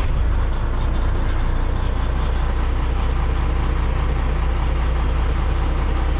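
Caterpillar 3406E inline-six diesel of a Kenworth T2000 idling steadily, heard from inside the cab.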